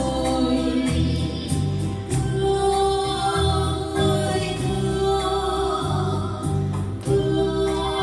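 Two women singing a duet in long held notes over an electronic keyboard accompaniment with a steady stepping bass line.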